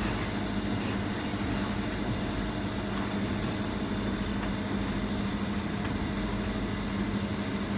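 Steady hum of ventilation machinery with a low drone, and a few faint soft rustles as hands press a pumpkin roll into breadcrumbs.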